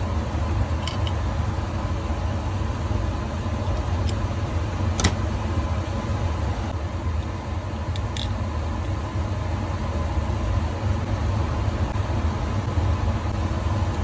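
Steady low hum of a clean-room air blower, with a few light clicks of small tools and drive parts being handled.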